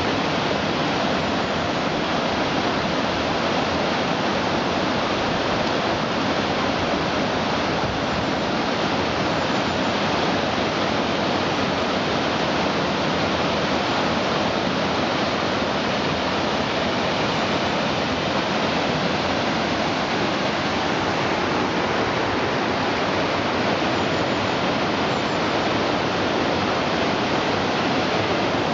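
Waterfall and river water rushing, a steady, unbroken noise.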